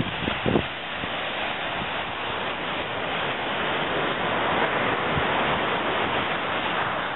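Steady rushing of breaking surf mixed with wind buffeting the microphone, swelling slightly toward the middle.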